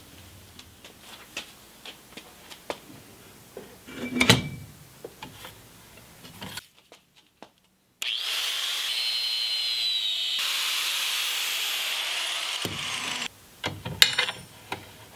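A few handling clicks and a knock, then an angle grinder with a cut-off wheel runs steadily for about five seconds with a high whine, cutting braided AN hose. It stops abruptly, and a few clicks follow near the end.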